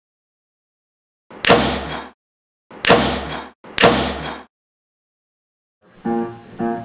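Three loud bangs, each starting suddenly with a deep boom that fades within about a second, the last two close together. Acoustic guitar music starts near the end.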